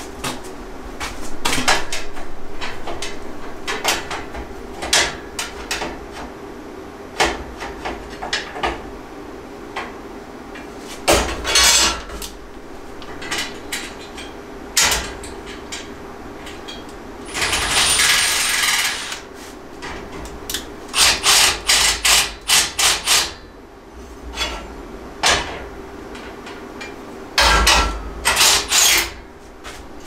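Cordless drill driving screws into a steel rack frame in short bursts, the longest about eighteen seconds in, with a string of quick bursts a little later. Around them come clinks and knocks of screws and metal parts being handled, over a faint steady hum.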